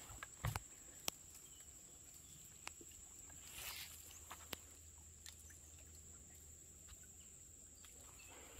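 Quiet woodland: a few soft footsteps and rustles in dry leaf litter, with light clicks, over a faint steady high-pitched whine.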